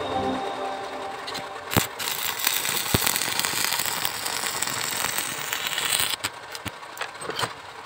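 A dense crackling hiss lasting about four seconds, starting with a sharp click and stopping abruptly, followed by a few scattered clicks.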